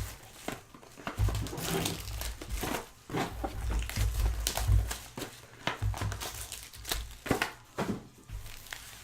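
Plastic card-pack wrapping crinkling and rustling as it is handled and torn open, with dull low bumps from handling now and then.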